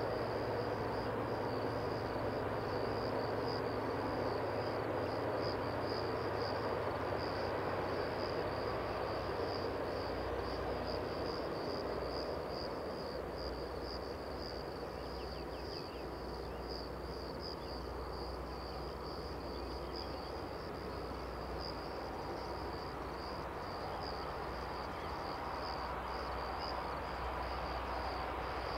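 Crickets chirping steadily in a high, pulsing trill, over a low distant rumble that grows a little stronger in the second half.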